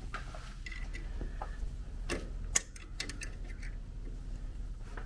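Irregular light clicks and ticks of hand tools against the end of a steering rack as the factory plastic bushing is worked out, with one sharper click about halfway through, over a steady low hum.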